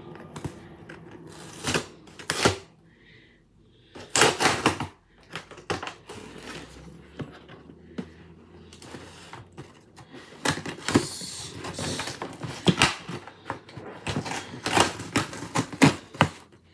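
Cardboard shipping box being opened and its packaging handled by hand: irregular bursts of rustling, scraping and clacking, with a short lull about three seconds in.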